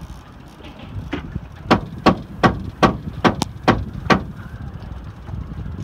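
A run of sharp knocks, about two to three a second, starting about a second in and stopping after about three seconds, over a steady low rumble.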